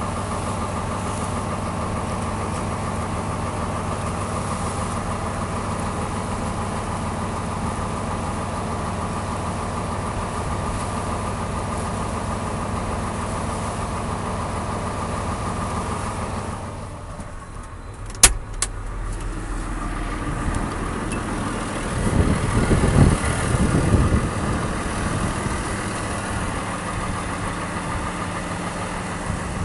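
An engine idling with a steady hum. About halfway through the hum drops away and there is one sharp click, then a few seconds of low rumbling before a steadier hum returns.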